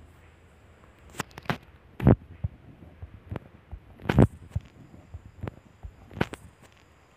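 A few irregular heavy low thumps and sharper clicks over a faint steady hum, the two loudest thumps about two and four seconds in.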